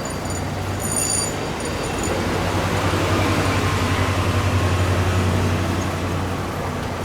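A heavy vehicle's engine going by with a low, steady drone and road noise, growing louder in the middle and easing off near the end. There is no siren.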